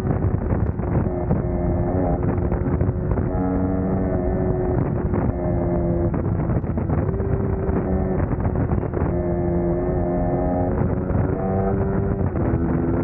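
Suzuki GSX-S150's single-cylinder four-stroke engine running under way, its pitch stepping up and down every couple of seconds.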